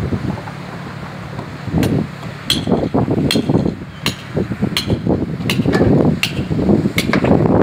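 A metal hand tool striking concrete paving stone repeatedly, about one blow every three-quarters of a second, each with a short metallic ring. The blows begin about two seconds in.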